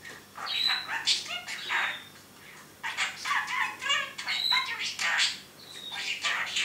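Budgerigar chattering: fast, high-pitched warbles, chirps and squeaks in three bursts with short pauses between, the running chatter of a talking pet budgie.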